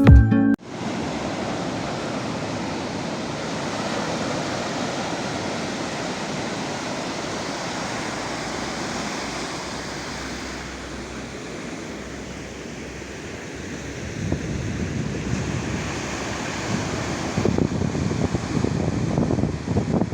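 Sea waves washing onto the shore in a steady rush, with wind buffeting the microphone in gusts near the end.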